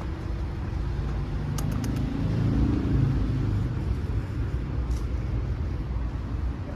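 Low steady rumble of street traffic, with a vehicle engine swelling louder about two to three seconds in and a few faint clicks.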